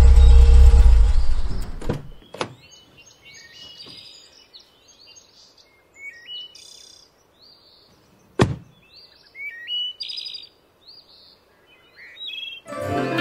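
Hyundai Eon hatchback's engine idling low, then switched off about two seconds in, with a couple of clicks. Birds chirp after that, and a car door shuts with one sharp thunk about midway. Music comes in near the end.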